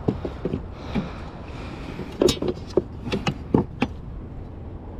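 A yellow plastic fish-measuring board is picked up and handled against the kayak's plastic deck, making a quick series of about six hard knocks and clatters. Under them runs a steady rumble of wind on the microphone and water around the hull.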